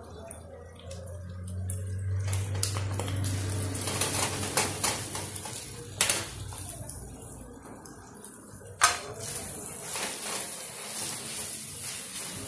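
A chicken, vegetable and tomato-sauce mixture sizzles in a frying pan as pineapple chunks are tipped in and stirred with a wooden spatula. There is scraping throughout and two sharp knocks against the pan, about six seconds in and again near nine seconds.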